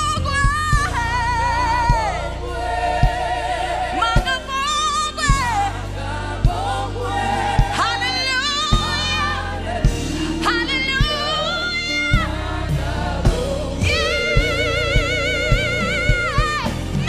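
Live gospel worship music: singing in long held notes with heavy vibrato over a band with steady bass and drum hits.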